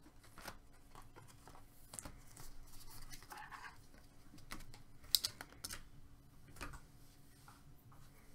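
Faint handling of trading cards and pack wrapper on a table: scattered light clicks and taps, a short crinkly rustle about three seconds in, and one sharper click just past the five-second mark.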